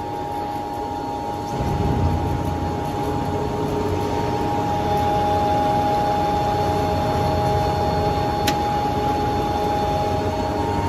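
Sawdust briquette machine running under its electric motor: a steady hum with a high whine, joined about a second and a half in by a heavier low rumble as sawdust is fed into the hopper and the screw takes up the load. A single sharp click sounds near the end.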